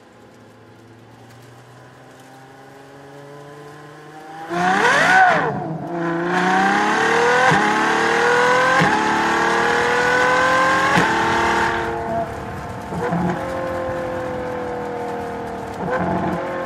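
LaFerrari's 6.3-litre V12 engine: a low hum slowly rising, then a sharp rev about four and a half seconds in. It then accelerates hard, its pitch climbing and dropping at three quick upshifts, before easing to a steadier, slightly falling note with a couple of brief blips near the end.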